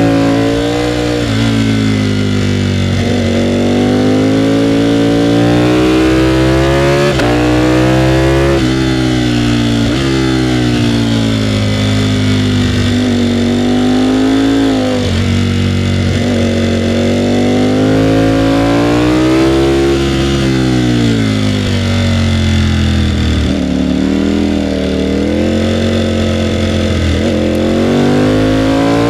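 Ducati Panigale V4R's V4 engine under way, its pitch rising under throttle and falling off again many times over. It repeatedly climbs, drops sharply and swells again as the bike accelerates and slows.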